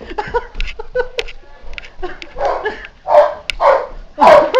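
A dog barking several times in quick succession, starting about halfway through, after a stretch of knocks and clatter.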